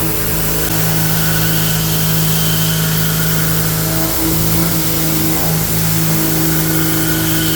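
Three-axis CNC machining center milling a steel part: a steady mechanical hum with an even hiss over it, running without a break.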